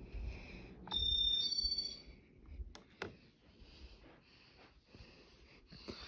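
Casablanca Panama ceiling fan's wall control pressed to switch the fan off. About a second in comes a short electronic beep in two parts. Then the fan coasts with a low rumble and a couple of light clicks.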